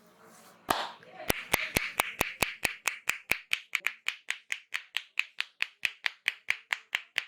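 Barber's hands slapping and clapping on the head in a percussive massage: sharp claps at an even beat of about four or five a second, starting just under a second in.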